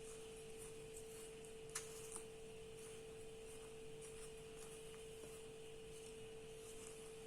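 Near silence: faint room tone with a steady hum at one pitch, and two faint clicks about two seconds in.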